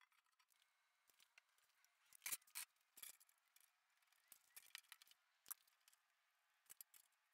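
Faint scattered clicks and short scrapes of hand tools being handled on a steel plate while a line is marked along a straightedge and measured with a tape measure. The loudest is a pair of sharp clicks a little after two seconds in.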